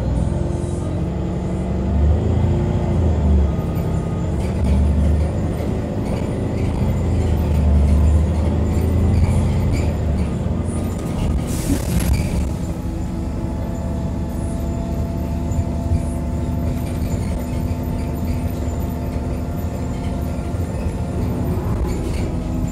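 Heuliez GX127 city bus heard from on board: its diesel engine and drivetrain running, the pitch shifting during the first half and steadier in the second. A short burst of hiss comes about halfway through. The phone microphone occasionally overloads.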